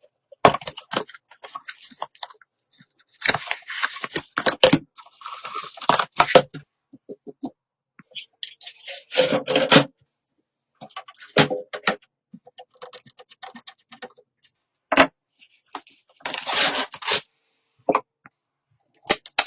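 Hardware parts and packaging being handled: irregular clicks, scrapes and tearing rustles in short bursts, with dead silence between them.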